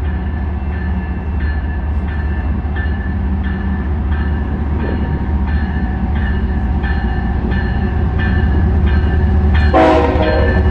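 Approaching Canadian Pacific diesel freight train: a steady low diesel rumble growing slowly louder as it nears, with a bell ringing about twice a second throughout. Near the end a short horn blast sounds.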